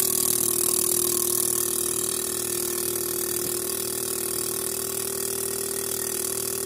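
Fuel-injector cleaning and test bench running: a steady electric hum with a strong hiss and fine rapid pulsing as it cycles a Toyota 4A-FE fuel injector. The pass is to clear an injector that tested poorly, with yellowish deposits and slightly sticking.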